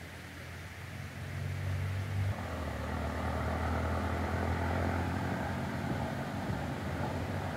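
A motor's low, steady drone that grows louder about a second in and again about two seconds in, then holds.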